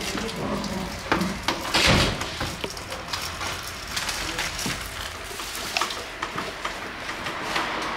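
Clear plastic wrapping rustling and crinkling while it is handled, with small clicks and knocks from handling parts and tools, and one louder knock about two seconds in.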